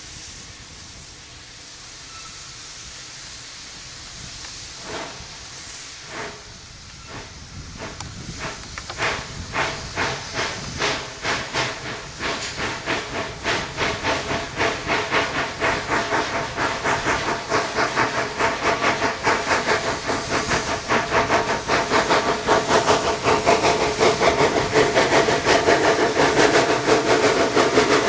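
Narrow-gauge steam locomotive starting away with its train: a steady hiss of steam at first, then single slow exhaust chuffs that quicken to about three a second and grow louder as it approaches.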